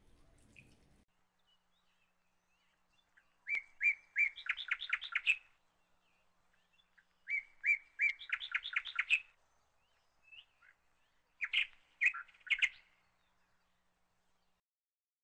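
A songbird singing three short phrases a few seconds apart, each a couple of clear high notes running into a quick string of notes.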